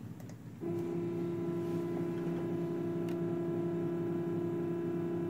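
CNC router's axis stepper motors whining at one steady pitch as the machine slowly drives the bit toward the touch plate on an automatic Y-axis probing move. The whine starts just under a second in.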